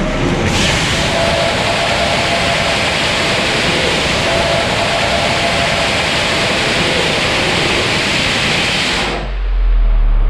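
Hybrid rocket engine of over 5 kN thrust firing on a static test stand: a loud, steady rushing hiss that starts abruptly about half a second in, holds for roughly nine seconds and cuts off suddenly at shutdown.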